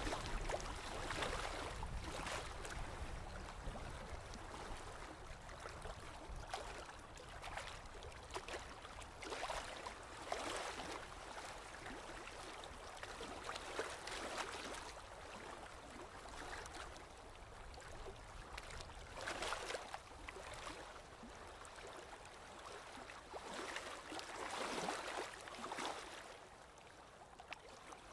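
Stream water lapping, a continuous wash with irregular small swells every second or two.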